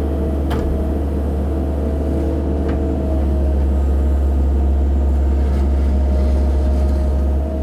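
CAT 308 mini excavator's diesel engine running steadily with a steady whine over it, getting louder about three seconds in as the machine works; a couple of faint clicks.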